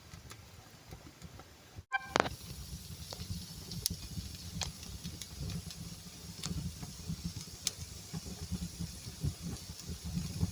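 Wood fire burning in a fireplace: a low steady rumble with scattered sharp crackles and pops, starting about two seconds in.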